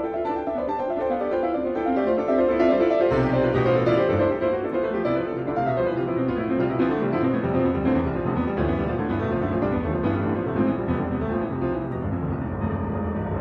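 Classical piano music: fast, dense runs of notes, with low bass notes coming in about three seconds in.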